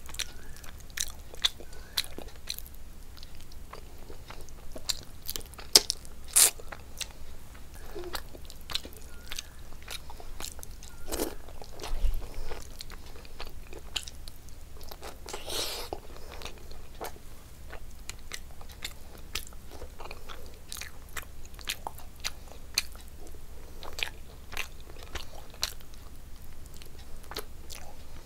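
Close-miked eating sounds of a person eating rice and fish curry by hand: wet chewing and lip-smacking with frequent sharp clicks, plus soft squelching as fingers mix the rice on the plate. A few louder smacks stand out, about six seconds in and again around twelve seconds.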